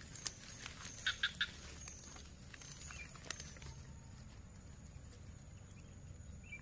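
Faint handling noises: a few light clicks and rustles as a hand holding a baited line works at an eel hole in a muddy pond bank among dry grass, with a quick run of three clicks about a second in. A faint high steady whine sits underneath.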